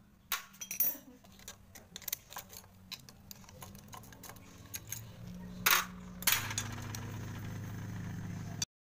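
Light metallic clicks and taps of pliers working at the cam sprocket of a Honda Supra motorcycle engine, then two louder metal knocks past the middle, followed by a steady low hum.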